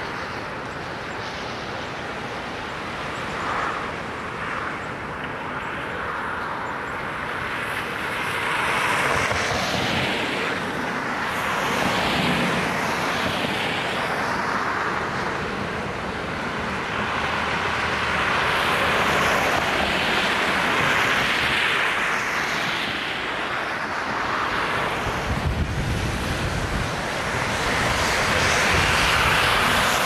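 Traffic on a snowy road: vehicles passing one after another, each a slow rise and fall of tyre hiss, with a deeper rumble from one of them a little past the middle.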